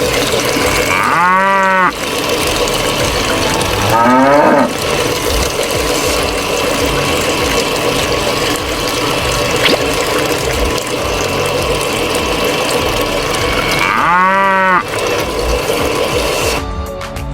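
Cattle mooing: two long moos, one about a second and a half in and one near the end, and a shorter sliding call around four seconds in, over a steady background noise.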